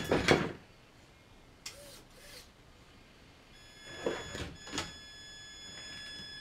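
Traxxas Summit electric RC monster truck climbing over firewood logs: wood and plastic knocking and clattering right at the start and again about four seconds in, with the electric motor's steady high whine under throttle through the second half.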